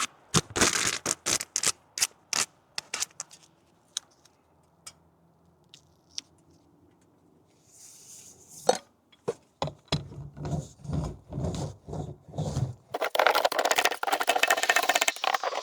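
Hand work on building materials: a quick series of sharp clicks and knocks, then a near-silent stretch, some rubbing and scraping, and a dense crackling rasp in the last few seconds.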